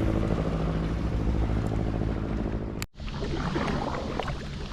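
A steady motor hum over wind and water noise. After an abrupt break about three seconds in, water splashes and laps against a kayak.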